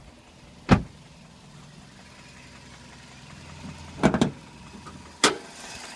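Toyota 1NZ-FE four-cylinder petrol engine idling steadily; the owner suspects it of knocking. Three loud, sharp thumps break over the idle: one about a second in, a close pair around four seconds, and one more after five seconds.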